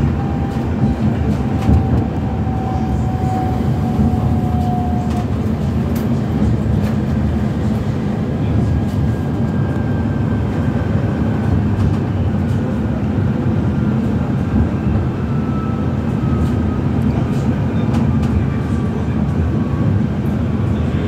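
Inside an Alstom Citadis Dualis tram-train running at speed: a steady rumble of wheels on rail, with a faint whine that slowly falls in pitch.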